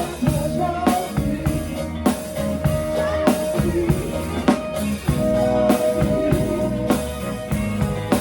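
A band playing: a drum kit keeps a steady beat with bass drum and snare under guitar and held melodic tones.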